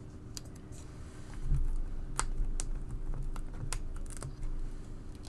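Scattered light clicks and taps of paper die-cut pieces being handled and pressed down on a craft table, with a soft thump about a second and a half in.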